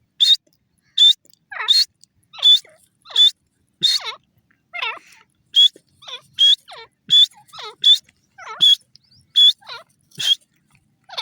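Francolin (teetar) calling: a long run of loud, harsh call notes, about one and a half a second, some short and sharp and others sliding downward.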